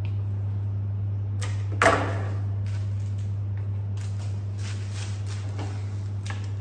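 Steady low hum throughout. About two seconds in there is one sharp, short swish of flower stems and greenery being handled, with lighter rustles and clicks later.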